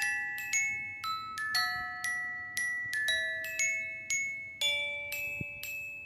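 Soft background music: a slow, bell-like melody of single struck notes, about two a second, each ringing out and fading before the next.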